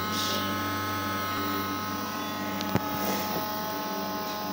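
Small electric motor of a homemade model helicopter running with a steady buzz, with one sharp click a little past halfway.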